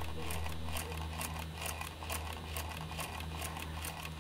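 Model Puffing Devil steam engine running in live steam with its drive wheels turning freely, giving rapid, even exhaust beats of about five a second over a steady low hum.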